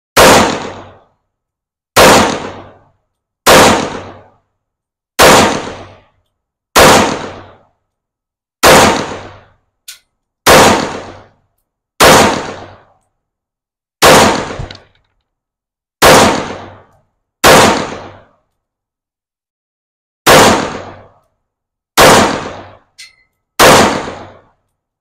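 PSA Rock 5.7x28mm pistol firing fourteen single shots in slow, steady succession, one every one and a half to two seconds with one longer pause late on. Each shot is a sharp crack with a short echo trailing off, and two faint clinks fall between shots.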